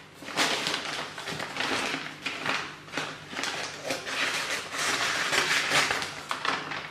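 A FedEx courier pack being opened by hand: irregular crinkling and rustling of packaging, with many short crackles.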